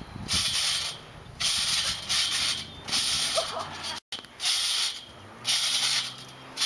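Trampoline being bounced on by two people: a hissing rush that comes about once every second and a half, with quieter gaps between.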